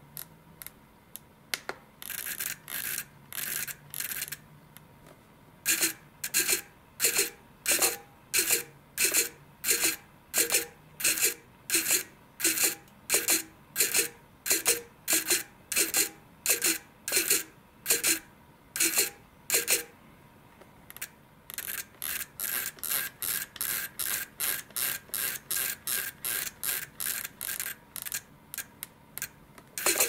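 Blue Bird RC micro servo driving its arm back and forth in repeated quick sweeps, each stroke a short whir of the motor and metal gears. About one and a half strokes a second through the middle, then faster, lighter strokes at about two a second near the end.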